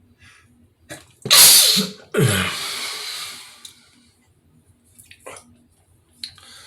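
A man sneezing: a loud burst about a second and a half in, followed straight after by a longer second burst that trails off.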